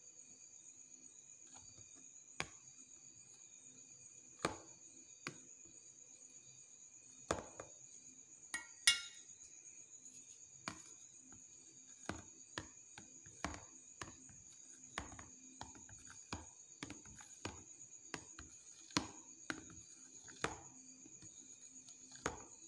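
Knife cutting set jelly into cubes in a plastic tub, the blade knocking and tapping on the tub's bottom at irregular intervals, over a faint steady high whine.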